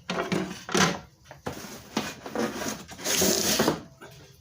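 Router table parts and packing material being pulled out of a cardboard box: a few knocks and thuds, then a longer rustling scrape near the end.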